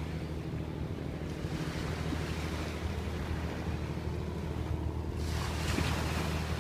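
Small sea waves washing and lapping over wet shoreline rocks, with a louder wash about five seconds in. A steady low engine hum runs underneath.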